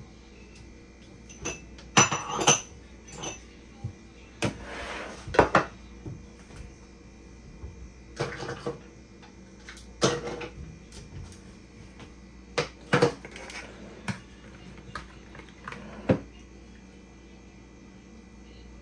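A spoon clinking and scraping against a pot and a bowl as sauce is spooned out, in scattered short knocks every second or two, some ringing briefly.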